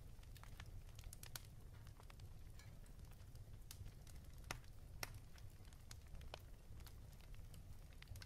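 Faint crackling of a wood campfire: sparse small pops and snaps over a low steady rumble.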